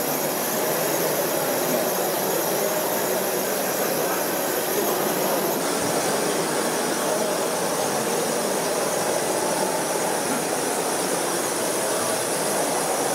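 Radio-controlled model excavators and trucks at work: a steady high whine and hiss from their electric drives. The mix changes abruptly about six seconds in.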